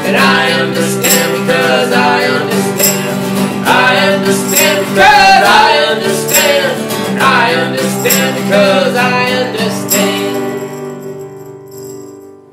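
Acoustic trio playing the close of a song: two strummed acoustic guitars, a tambourine struck on the beat, and a harmonica playing the bending melody line. From about ten seconds in, the chords ring out and fade away.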